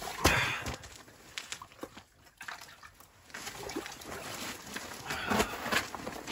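Water sloshing and dripping as a lake trout is hauled out through a hole in the ice and handled in the slush. A loud burst of noise comes just after the start, then scattered knocks.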